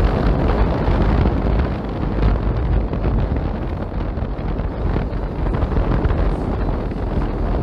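Strong storm wind buffeting the microphone over the steady rush of a boat running through rough water.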